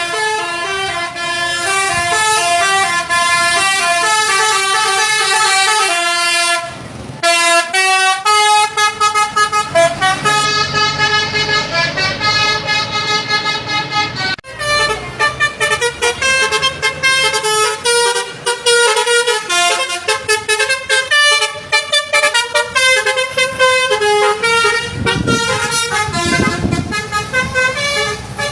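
Indonesian tour-bus 'basuri' melody horns playing 'telolet' tunes, a string of stepped multi-tone horn notes. There is a short break about seven seconds in and a change of tune about halfway through, as one horn gives way to the next.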